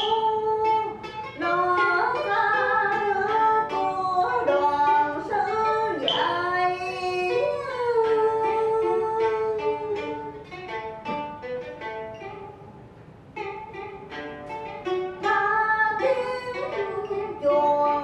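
Southern Vietnamese vọng cổ music played live: plucked notes on the đờn kìm moon lute, bent and slid in pitch, with a singing voice. The music drops quieter for a few seconds just past the middle.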